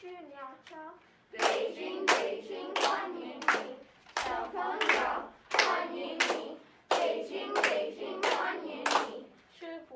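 Children singing a rhythmic chant, with a sharp hand clap on each beat, about three claps every two seconds. The clapping starts after a softer sung opening.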